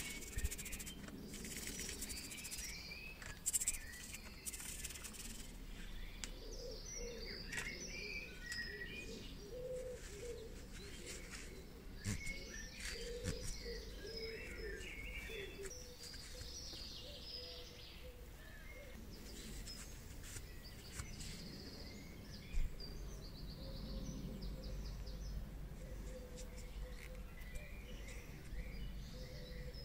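Small metal parts being wiped with a paper towel: rustling and crinkling with a few sharp clicks, while birds chirp in the background.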